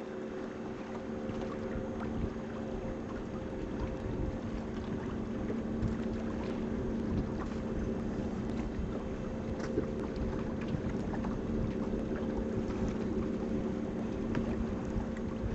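A boat's motor running at a steady hum, over a constant rush of water and wind.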